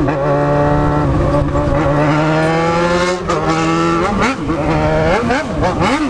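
Yamaha XJ6 inline-four motorcycle engine pulling under throttle with its pitch rising slowly, dropping briefly twice as the revs fall, then revved up and down in quick throttle blips, about two a second, through the last two seconds.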